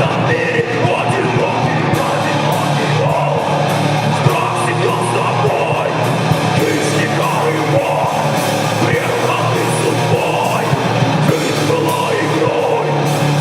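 Loud heavy rock music with guitar and yelled singing, playing steadily without a break.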